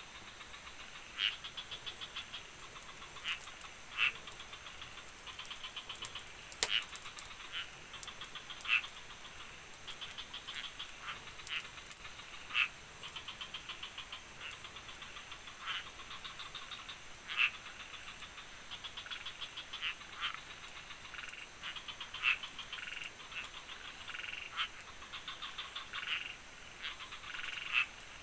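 Frogs calling in a chorus at night: rapid trains of clicking pulses and sharp single calls every second or so, over a steady high-pitched drone.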